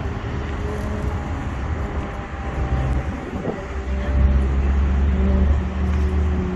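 A motor engine running with a heavy low rumble and a steady hum whose pitch drifts slowly, growing louder about four seconds in.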